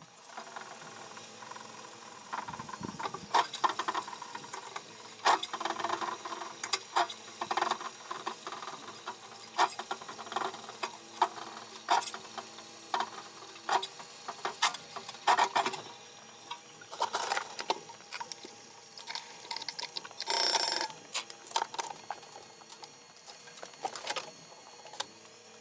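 Irregular clicks, knocks and rattles of hand work on a washing machine's metal and plastic parts, with a noisy burst lasting about a second around twenty seconds in.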